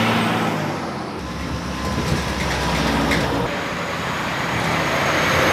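Heavy gravel trucks driving by, their diesel engines running over continuous road noise, with a deeper low rumble swelling for a couple of seconds in the middle.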